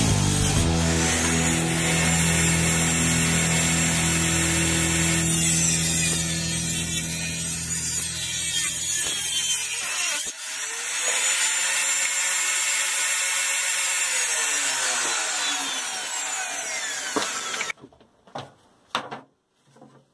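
Bench-top table saw running and ripping a length of wood, a steady high whine over the cutting. About fifteen seconds in the whine slides down as the blade spins down, and it stops near the end, followed by a few knocks.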